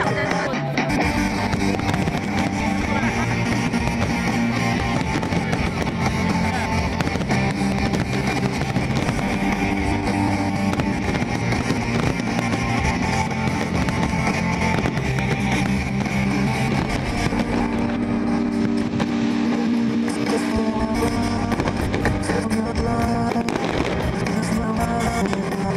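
Music playing steadily, with fireworks bursting and crackling over it throughout.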